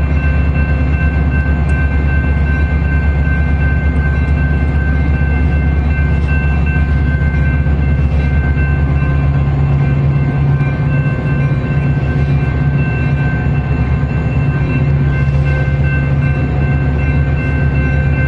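Metra bilevel commuter train standing at the platform, giving a loud, steady mechanical hum with thin, high, steady whining tones above it.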